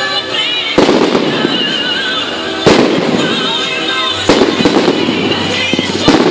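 Fireworks display: four sharp bangs from bursting shells, about one, three, four and six seconds in, each followed by dense crackling.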